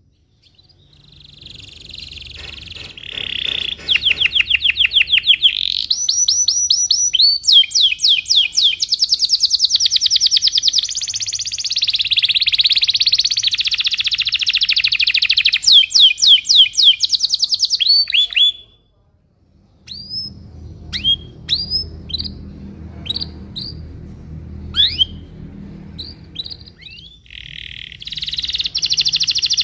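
Domestic canary singing: fast rolling trills and buzzy passages that break off after about eighteen seconds. A short pause follows, then a run of separate sharp falling chirps, and the bird goes back to trilling near the end.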